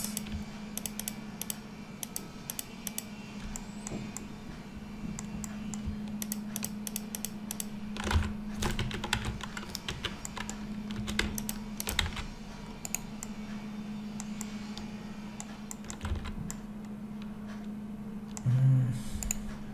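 Computer keyboard keys and mouse buttons clicking irregularly while the user works in 3D modelling software, with a steady low electrical hum underneath.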